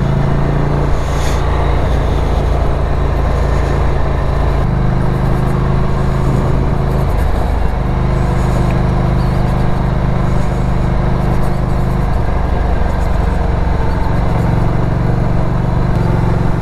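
Ducati Scrambler's L-twin engine running steadily under way, with a loud low rumble. Its note steps to a new pitch a few times, at about five, seven and fourteen seconds in.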